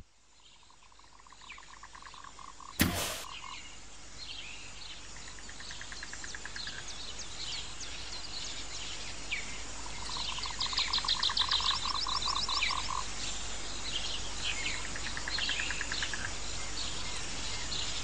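Nature ambience of frogs giving rapid pulsed trills and birds chirping, fading in over the first few seconds. There is one sharp click about three seconds in.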